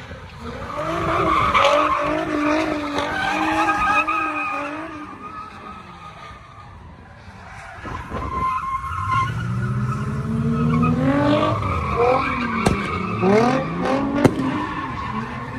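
A car doing donuts on asphalt: its engine held at high revs while the tyres squeal, easing off about six seconds in. From about nine seconds it revs up and slides again, its pitch rising and falling, with a couple of sharp cracks near the end.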